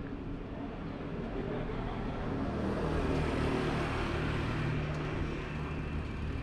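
A motor vehicle passing on the street: its noise swells to a peak about three seconds in and then fades, over a low engine hum.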